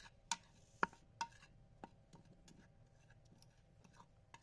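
Metal spoon clinking against a bowl while stirring dry gram flour and spices: four sharp clinks in the first two seconds, then a few fainter ticks.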